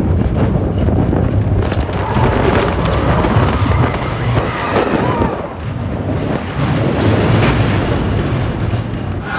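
Wind buffeting the microphone over the rumble of a roller coaster train on the Expedition Everest ride, loud and steady.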